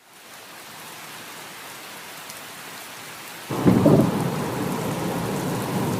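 Thunderstorm sound: steady rain fading in, then a rumble of thunder about three and a half seconds in, after which the rain stays heavier.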